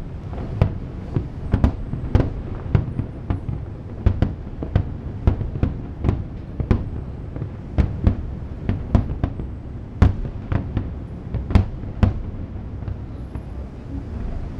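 Fireworks bursting overhead: a rapid string of sharp bangs, about two a second with some louder than the rest, over a rolling low rumble, easing off near the end.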